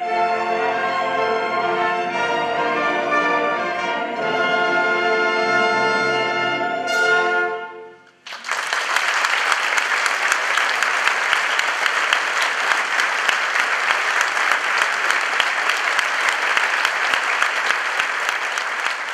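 A symphony orchestra plays the closing bars of a Viennese song, ending with a brief upward flourish and a final chord about seven seconds in. After a moment's break, a hall audience breaks into steady applause that lasts to the end.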